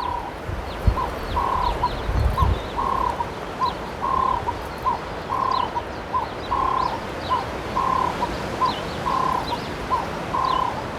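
A bird repeating a two-note call, a longer note followed by a short one, about every second and a half, with faint chirps of small birds. Wind gusts buffet the microphone in the first couple of seconds.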